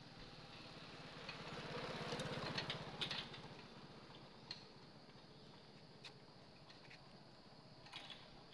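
An engine swells and fades over about three seconds, with a cluster of sharp clicks at its loudest and a few single clicks later.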